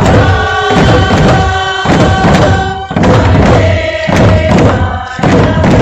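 Voices chanting together on long held notes over repeated drum thumps.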